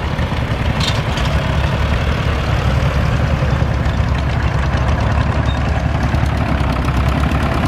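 Heavy diesel engine of a pulling tractor running steadily with a deep rumble, growing a little louder over the first couple of seconds.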